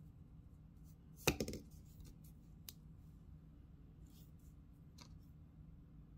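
Small hard objects being handled: a short clatter of several clicks about a second in, then a few single clicks, over a steady low hum.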